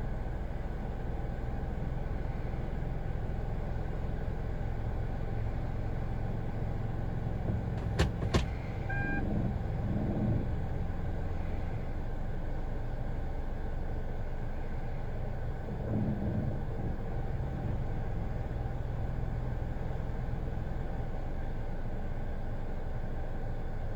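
Kia Ray's small three-cylinder petrol engine idling, with a brief swell in the running about 10 and 16 seconds in; the engine has a rough idle that new spark plugs, ignition coils and a throttle-body and injector cleaning have only partly cured. Two sharp clicks and a short beep come about 8 seconds in.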